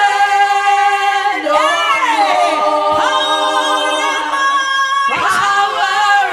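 Unaccompanied singing voices holding long notes, with swoops in pitch about one and a half seconds in and again near the end.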